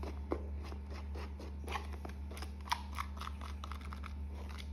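Spoon stirring a thick, foamy slime mix of glue, shaving cream and pink food colouring in a bowl, before the activator goes in: irregular soft squishy clicks and scrapes, with one sharper click about two and a half seconds in.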